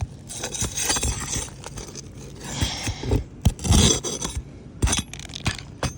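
Hand tool scraping and knocking against roof shingles as a damaged shingle is worked loose and its nails pulled: a series of rough scrapes with sharp knocks between them.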